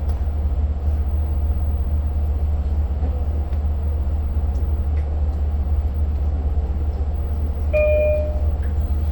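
Steady low rumble inside the passenger car of a Long Island Rail Road diesel train under way. A brief high tone sounds about eight seconds in.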